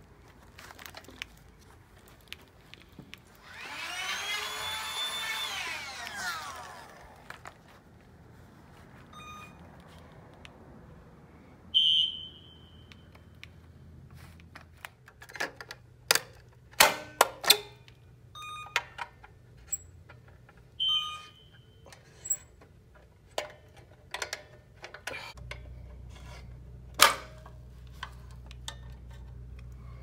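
Fire alarm pull station being operated: a series of sharp clicks and snaps as its handle is pulled down and the station is opened. A fire alarm horn gives a short beep twice, the walk-test sign that a device has been activated. Earlier there is a few seconds of a pitched sound that rises and then falls.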